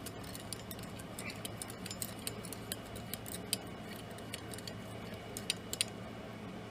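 Light, irregular clinks and ticks of a metal utensil against a coffee mug, stirring in the cream and sugar.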